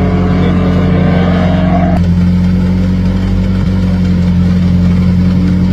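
Rallycross car engines running, one rising in pitch as it accelerates over the first two seconds. About two seconds in the sound changes abruptly to a steadier, duller engine drone.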